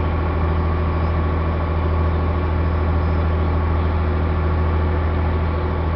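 Boat engine running at a steady, unchanging speed: a loud low drone.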